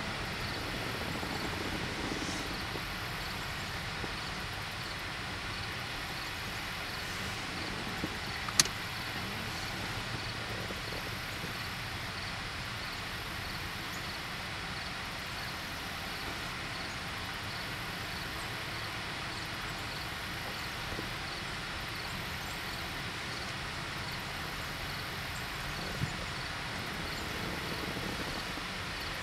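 Steady outdoor background noise like distant traffic, with a faint, evenly repeating high chirping over it. A single sharp click about eight and a half seconds in, and a smaller knock a few seconds before the end.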